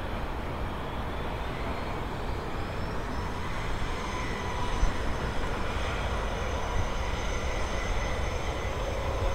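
A JetBlue twin-engine jet airliner touching down and rolling out on the runway: steady jet engine noise with a thin rising whine about two seconds in.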